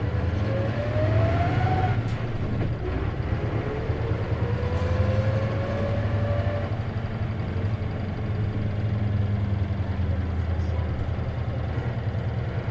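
Isuzu KC-LV380N bus engine and drivetrain pulling through the gears under a steady low drone. A whine climbs in pitch until about two seconds in, breaks off at a gear change, then climbs again until about six and a half seconds in. This whine is the odd noise the bus is recorded for, which the uploader thinks may be a symptom of its manual transmission.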